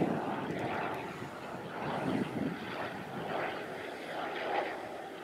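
Piston engine and propeller of a vintage biplane in flight overhead, running steadily.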